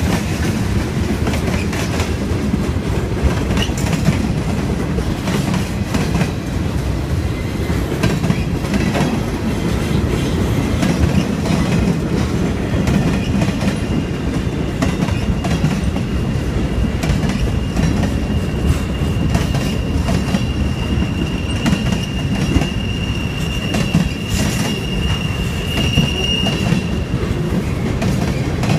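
Freight train's boxcars rolling past: a steady rumble with wheel clatter over the rail joints. From about halfway through until near the end, a steady high wheel squeal rides over it.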